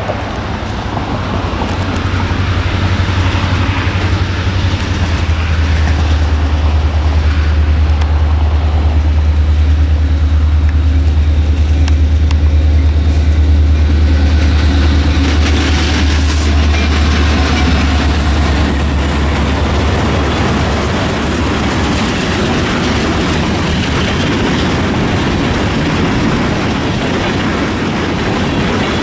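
Freight train passing: the deep steady rumble of two six-axle diesel locomotives, an EMD SD60M and a GE C40-9, grows louder and peaks about halfway through as they go by, then gives way to the rolling rail noise of the covered hopper cars behind them.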